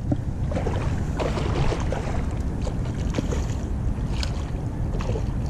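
Wind buffeting the microphone, with irregular splashing from a hooked milkfish thrashing at the surface at the end of the line.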